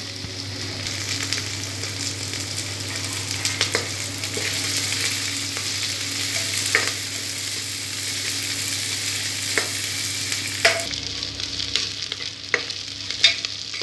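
Sliced onions, garlic and whole spices sizzling in hot oil in an aluminium pressure cooker, stirred with a steel spoon that scrapes and clicks against the pot now and then. The sizzle thins near the end.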